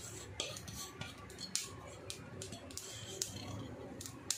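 Faint, scattered ticks and light scrapes from grated dry coconut and whole spices (cumin, sesame, coriander seeds, poppy seeds) being dry-roasted in a kadhai with a spatula.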